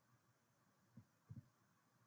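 Near silence, with a few faint low thumps about a second in.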